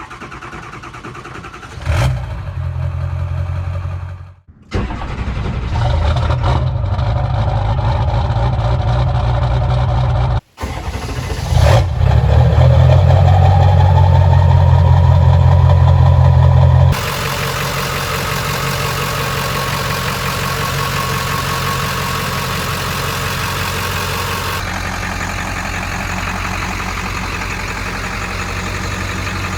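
Ford 7.3 L Powerstroke V8 turbo diesel engine starting and running in several short takes, the sound changing abruptly between them. Starting near 12 s, a whine rises and then holds steady over the engine note.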